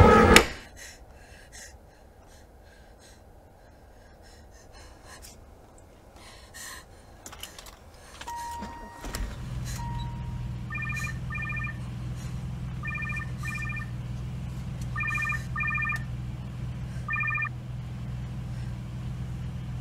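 Electronic telephone ring: short trilling double rings, repeated about every two seconds, over a low steady hum that comes in about nine seconds in. Right at the start a loud wailing sound cuts off abruptly.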